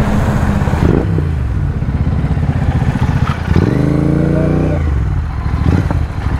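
Royal Enfield Continental GT 650's parallel-twin engine slowing down from speed, its note falling in steps over the first few seconds. About three and a half seconds in, a rev rises and falls, then the engine settles to idle near the end.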